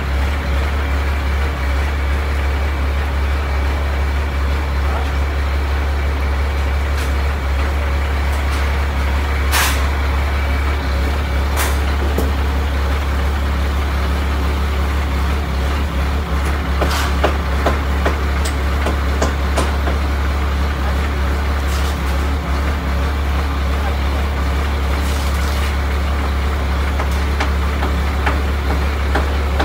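Crane truck's diesel engine running steadily, a loud constant low drone, with a few sharp knocks and clanks scattered through it.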